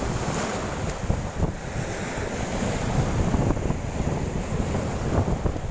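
Wind buffeting the microphone in irregular gusts over small sea waves breaking on the shore.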